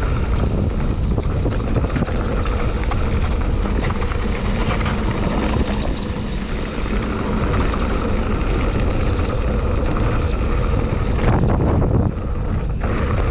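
Mountain bike rolling downhill at speed: wind buffeting on the camera microphone over the rumble and rattle of the tyres and bike on dirt and cobblestones, with a few sharper rattles near the end.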